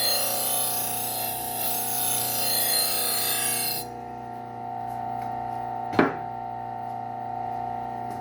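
Slow-speed sander's motor humming steadily while a knife edge is polished against its leather wheel, a rubbing hiss that stops a little under four seconds in, which removes the burr from the edge. The motor runs on, with a few light ticks and one sharp click about six seconds in.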